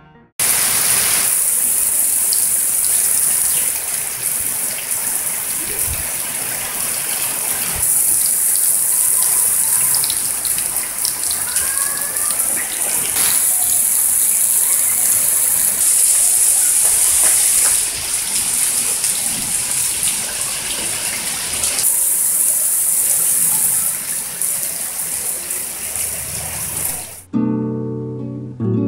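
Steady rain falling, an even hiss of drops. It cuts off suddenly near the end, and acoustic guitar music begins.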